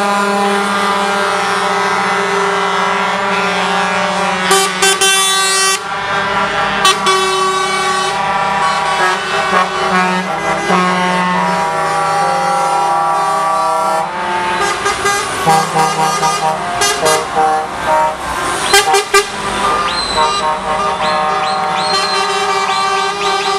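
Semi-truck tractor units in a convoy driving past and sounding their air horns again and again, chords of steady tones starting and stopping over their engine noise.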